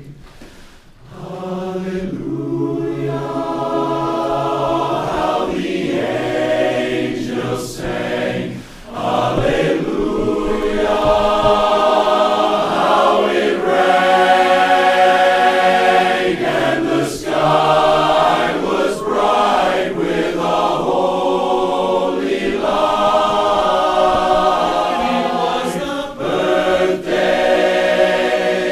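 Men's barbershop chorus singing a cappella in close harmony, many voices together on sustained chords. Short breaths between phrases near the start and about eight seconds in, then the chords swell and stay loud.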